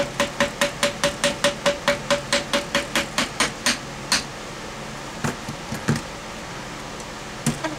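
Rapid metal tapping on the drain auger's cast metal parts, about five taps a second for some three seconds, each with a short ring. A few slower taps and scattered knocks follow.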